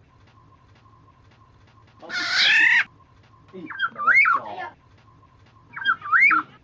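Black-naped oriole calling: one harsh, nasal rasping call about two seconds in, then two fluty whistled phrases that rise and fall in pitch. A faint steady hum runs beneath.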